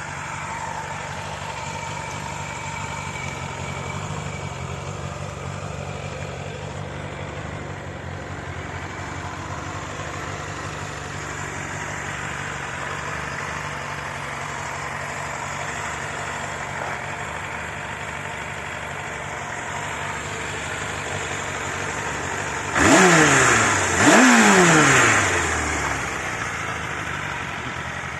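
Suzuki Bandit 600N's air/oil-cooled inline-four engine with its stock exhaust, idling steadily, then blipped twice near the end, each rev climbing fast and dropping back to idle.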